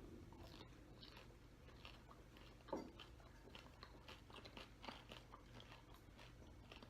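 Faint crunching and chewing as crisp pani puri shells filled with potato masala and kimchi water are bitten into and eaten. Many small crackles, with one louder knock nearly three seconds in.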